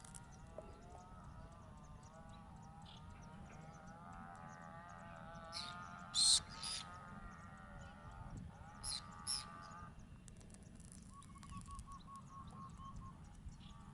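Birds calling: overlapping wavering calls through the first part, a few short, sharp, louder calls around the middle, then a quick run of about eight evenly spaced notes near the end.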